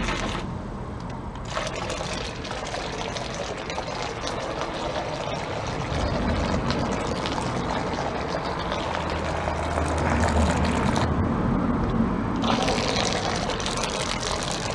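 Model boat churning through the water of a paddling pool: a steady watery rushing and splashing, whose hiss drops away briefly twice, once just after the start and again about eleven seconds in.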